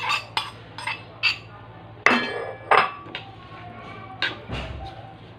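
Kitchenware clinking and tapping: a spoon and a small ceramic bowl knocking as chopped spring onion is emptied into a wooden mixing bowl. A quick run of light taps opens, then a louder ringing clink about two seconds in and a second one just after, with a few scattered taps as the mixture is stirred.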